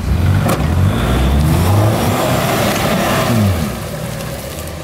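Four-wheel drive engine revving hard, its pitch rising and falling, as a bogged Nissan Patrol with its diff dragging is snatched out of soft mud on a recovery strap; the revs drop away about three and a half seconds in.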